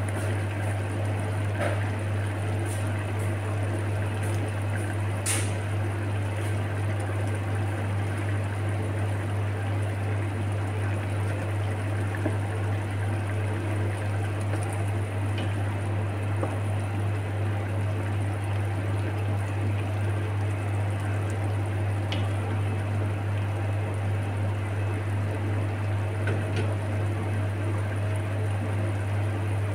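A pot of bottle gourd and sardines simmering uncovered on a gas stove, a steady bubbling hiss under a loud, even low hum, with a few light clicks, the sharpest about five seconds in.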